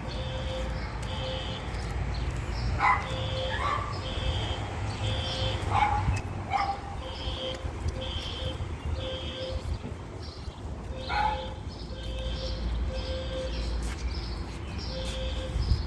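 Building fire alarm sounding in a repeating pattern of short high-pitched beeps. A few short, sharp sounds cut in on top, in pairs around three and six seconds in and once about eleven seconds in.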